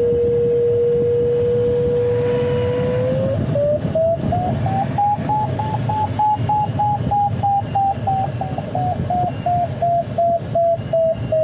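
Glider variometer audio: a steady low tone that switches about three seconds in to a run of short, quick beeps, rising in pitch and then easing down. The beeping signals that the glider is climbing in lift. Steady airflow rush in the closed cockpit lies underneath.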